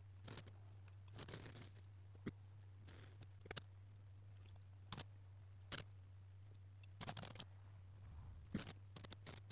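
Lichtenberg fractal wood burner: high voltage burning its way through the wet surface of a wood panel, heard as faint, irregular crackles and sharp pops, some in short sizzling bursts, over a steady low hum.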